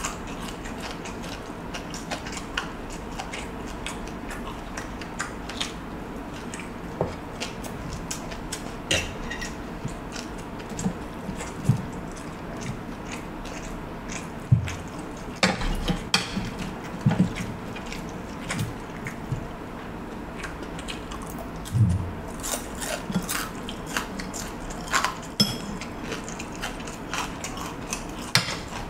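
Eating sounds: chewing of fried rice and fish, with irregular clicks and scrapes of a fork and spoon against a plate, busier in the second half.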